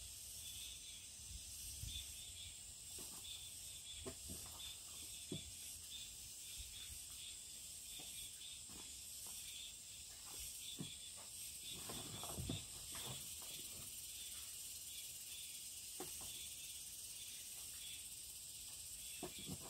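Steady high-pitched insect chorus, with faint scattered crinkles and soft taps as hands crumble lumps of drying potato starch on a plastic sheet; a small cluster of these handling sounds comes about twelve seconds in.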